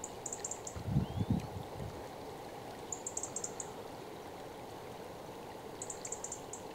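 Steady rush of fast-flowing river water. A few low thuds come about a second in, and three short bursts of quick high ticking are heard.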